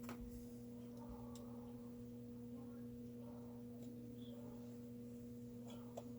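Steady low electrical hum with a few faint, light clicks, about a second in and again near the end, typical of small chainsaw parts being handled on a bench.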